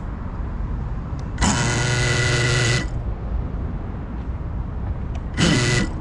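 Cinelog35 cinewhoop FPV drone flying low, its motors and propellers making a steady rush. Twice the throttle is punched and the motors rise to a loud buzzing whine: first for over a second, then for about half a second near the end.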